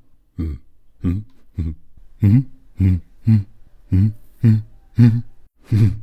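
A person doing a monster voice: about ten short, low grunts in a steady rhythm, roughly two a second, each one dropping in pitch.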